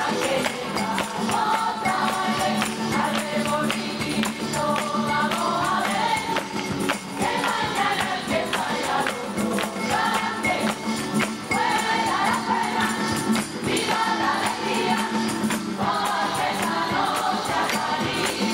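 Background music: a choir singing phrase after phrase over rapid, continuous jingling percussion, with a steady low note held underneath.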